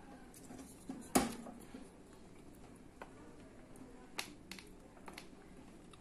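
Scattered light clicks and taps of a hand handling the magnetron and its metal fittings inside an opened microwave oven, with one sharper knock about a second in.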